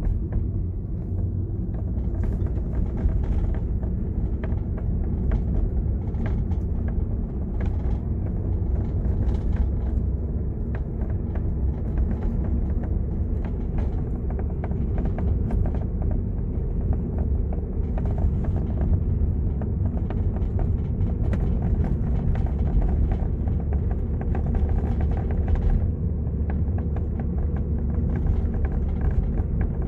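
Hyundai i30 Turbo's panoramic roof rattling, with many short, irregular clicks and knocks over the car's steady road rumble. It is a recurring fault that a replacement roof cured for only about a year.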